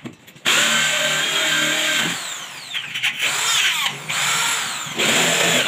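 Handheld power drill run overhead into the ceiling, fixing a chandelier's X-shaped metal mounting bracket. It spins steadily from about half a second in, then its pitch swoops down and back up in three or four shorter trigger pulls.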